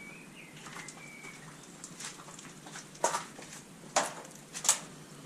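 A faint, thin bird call in the first second or so, then three sharp cracks about a second apart, the last two close together.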